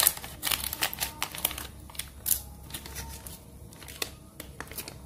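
Thin clear plastic powder packet crinkling as it is squeezed and handled to tip out powder, in irregular crackles that are busiest in the first couple of seconds.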